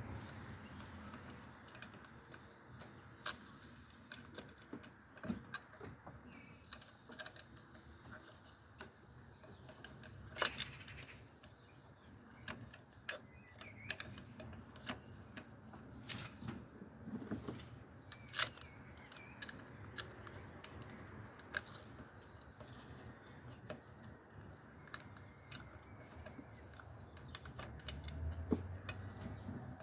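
Scattered light metallic clicks and taps of hand tools and small metal parts being handled. Two sharper clicks ring briefly, about a third of the way in and a little past the middle.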